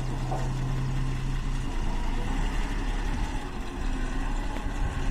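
Engine of a truck-mounted borewell drilling rig running steadily. A low hum in it stops about two seconds in.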